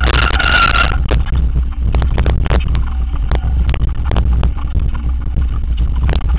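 Mountain bike riding fast down a rocky gravel downhill trail: wind buffets the microphone in a steady low rumble, with frequent sharp knocks and rattles as the bike runs over rough ground. A high squeal sounds through the first second.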